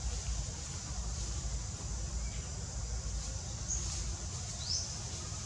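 Forest ambience: a steady low rumble under a high, even insect hiss, with two short high bird chirps near the end, the second rising in pitch.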